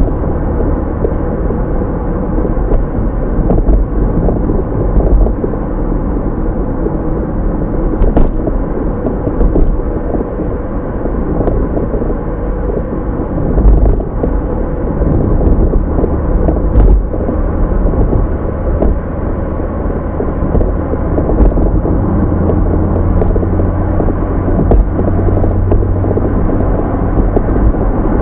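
Sports car engine sound effect: a loud, steady low rumble with a few faint clicks, deepening a little about two-thirds of the way through.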